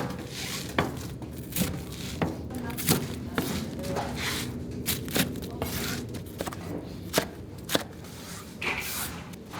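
Commercial kitchen work: irregular sharp knocks and clacks of utensils and food being handled, about one or two a second, over a steady machine hum.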